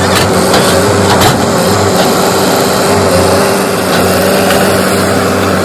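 CASE backhoe loader's diesel engine running loud and steady under work, with a few faint knocks in the first second or so.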